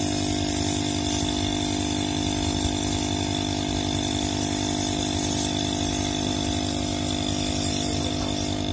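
An engine running steadily at an even speed, a constant hum of several tones with a high hiss over it.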